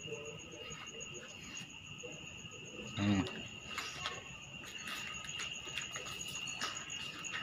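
Night insects: a mole cricket (orong-orong) singing one steady, unbroken high trill, with another insect chirping in quick even pulses higher up. A brief low voice-like sound about three seconds in, and a few faint clicks.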